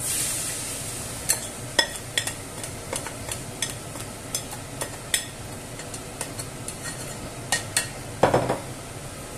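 Beaten egg mixture poured into a hot frying pan, a brief sizzle as it hits the oil, then many quick clicks and taps of a spatula scraping the glass bowl and stirring in the pan. A duller knock near the end.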